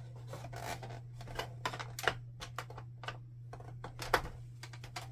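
Flathead screwdriver prying the plastic clips of a Canon PIXMA TS5120 printer's housing: a run of irregular sharp plastic clicks and snaps, with a steady low hum beneath.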